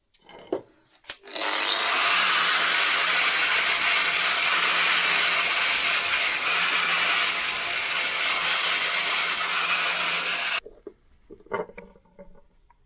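Handheld power tool grinding rust off a corroded steel bayonet blade on its first grinding pass: a steady, loud grinding hiss with a low motor hum. It starts after a couple of knocks about a second in and cuts off suddenly near the end.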